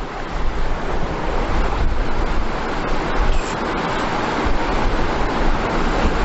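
Steady loud rushing noise, growing a little louder about a second in.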